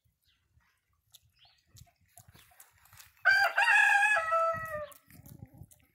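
A rooster crowing once, about three seconds in: one long call that drops in pitch partway through and trails off.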